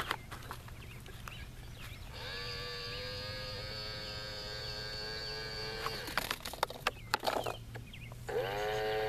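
Tonka Mighty Motorized Garbage Truck toy's electric front-loader motor whining at a steady pitch as it lifts a dumpster, starting about two seconds in and stopping about four seconds later. A quick series of plastic clicks and rattles follows as the dumpster tips its trash into the hopper. The motor whine starts again near the end.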